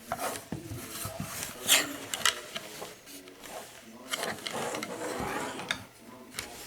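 Irregular clicks, knocks and scraping of a small plastic computer-speaker satellite being handled, with the sharpest knocks about two seconds in.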